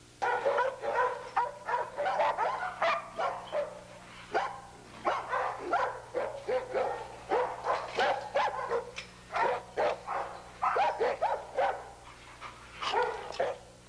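A Bouvier des Flandres barking repeatedly in rapid volleys, with short lulls about four seconds in and again near the end.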